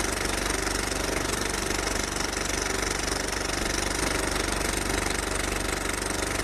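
Intro sound effect: a steady, fast-throbbing hum with several held tones.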